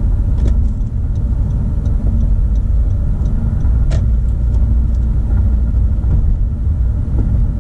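Steady low road and engine rumble inside a moving Honda Civic's cabin at road speed, with a faint click about four seconds in.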